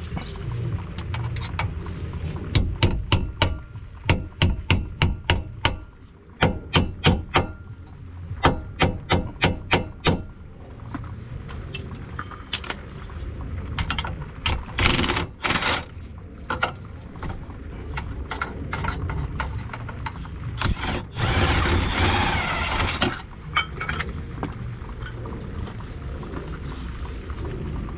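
Hammer blows ringing on the steel of a car's front hub and suspension arm: a quick run of sharp strikes for several seconds, then scattered knocks and short scraping of tools on metal.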